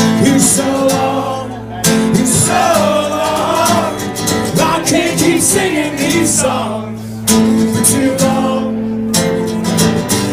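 Acoustic guitar strummed live in steady chords, with a voice singing a wavering melody over it for a few seconds in the middle.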